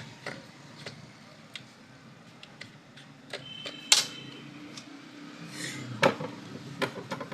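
Scattered clicks and knocks of hard objects being handled, with one sharp click about four seconds in that rings briefly, and a quick run of clicks near the end.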